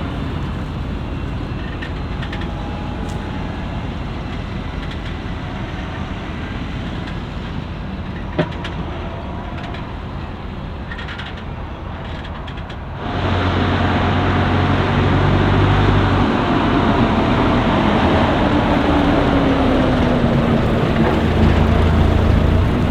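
Diesel engines of heavy maize-harvesting machinery, a forage harvester and tractors with silage wagons, running steadily. About thirteen seconds in the sound turns abruptly louder and heavier, and an engine note then sinks in pitch and holds.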